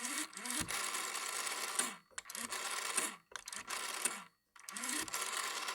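Rotary dial telephone being dialed: four digits, the dial whirring and clicking as it spins back after each, the first return about two seconds long and the others about a second each.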